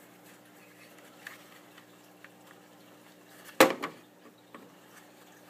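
Faint plastic clicks of a dot-matrix printer's ribbon cartridge being worked loose by hand, then one sharp loud clack a little past halfway with a brief rattle after it as the part comes free.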